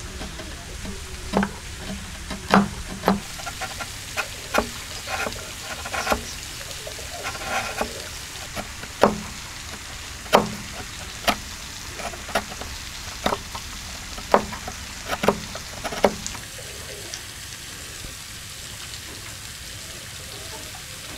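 Steel chisel chopping into a wooden beam to cut a joint notch by hand: a run of irregular sharp knocks with the crackle of wood fibres splitting, which stop about three-quarters of the way in, over a steady background hiss.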